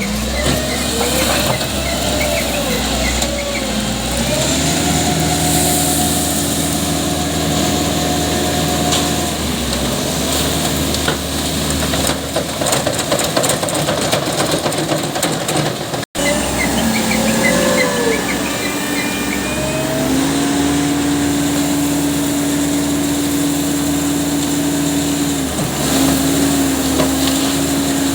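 Diesel engine of an Ajax self-loading concrete mixer running hard, its pitch climbing over a few seconds, then holding steady with a brief dip. The sound cuts off abruptly about halfway through, and the same climb and steady run start again.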